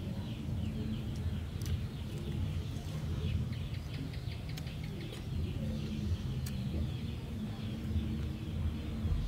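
Outdoor garden ambience: birds chirping over a steady low hum, with a few sharp clicks about two, four and a half, and six and a half seconds in.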